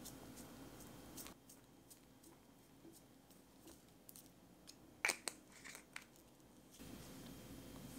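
Small seasoning jar shaken over a cream-cheese bagel: faint light ticks and taps of seeds and the jar. A few sharper clicks come about five seconds in.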